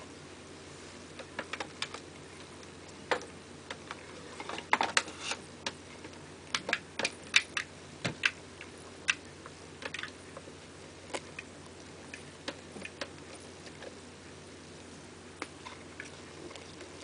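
Six-spotted ground beetle (Anthia sexguttata) chewing a grasshopper: irregular sharp crunching clicks, thickest through the middle and sparser toward the end.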